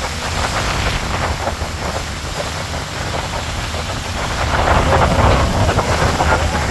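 Strong wind buffeting the microphone on a boat at sea, with waves splashing against the hull; the splashing grows louder about four and a half seconds in.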